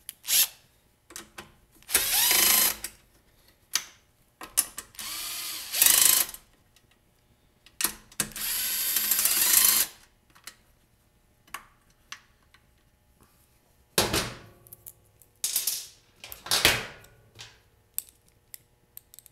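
Hand ratchet clicking in several quick runs as the bolts holding the gas tank onto the blower housing of a Briggs & Stratton lawn mower engine are undone, with single clicks and taps of the tool in between.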